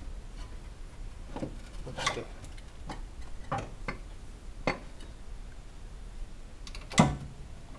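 Metal clinks and knocks as a car A/C compressor is twisted and worked out of a cramped engine bay, knocking against pipes and a bracket. About six scattered knocks; the loudest comes near the end.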